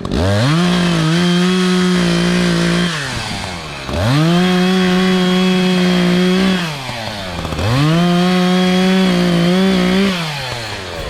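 Echo CS-590 Timberwolf two-stroke chainsaw opened up to full throttle three times. Each time it is held high and steady for about three seconds, then drops back toward idle.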